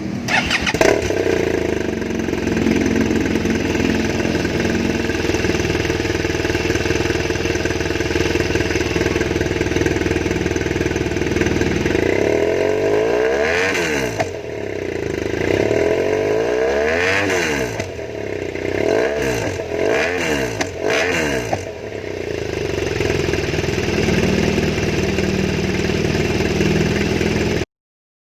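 2016 BMW R1200GS (K51) boxer twin on its stock exhaust idling steadily, then revved with four throttle blips, each rising and falling, before dropping back to idle. The sound cuts off near the end.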